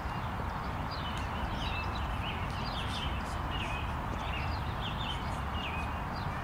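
Birds chirping in the background, short high calls two or three times a second, over a steady low outdoor rumble.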